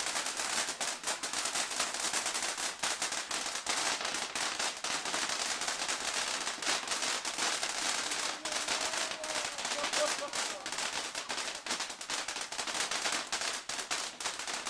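Ground fountain firework (TNT Starburst fountain) spraying with a steady loud hiss and dense rapid crackling pops.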